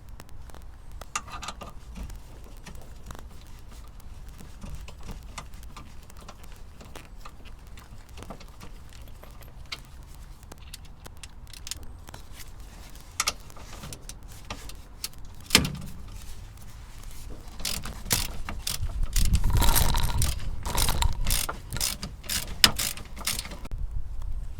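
Socket ratchet clicking as the Torx bolts of a rear shock absorber and its top mount are tightened: scattered clicks at first, then quicker runs of clicking, loudest about three quarters of the way through.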